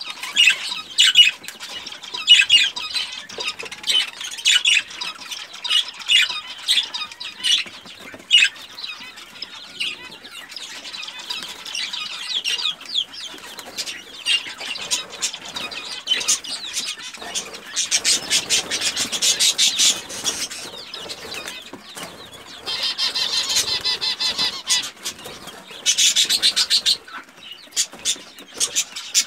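Pekin bantam chicks peeping in short high calls, with rustling and clicking as they scratch and peck in a tray of chick crumb.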